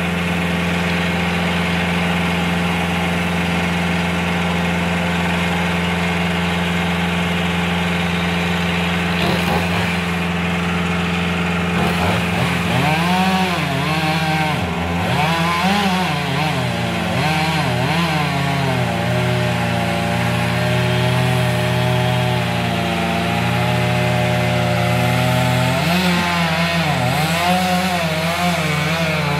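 Chainsaw running steadily at high revs. From about twelve seconds in, its pitch rises and falls repeatedly as the saw is loaded in the cut.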